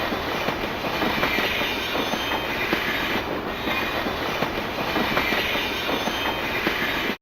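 Train running on rails: a steady rolling rumble with many small rail clicks and wheel noise, cutting off suddenly near the end.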